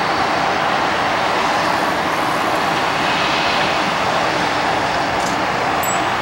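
Jet airliner engines running steadily while taxiing: an even rushing noise with a faint high whine over it.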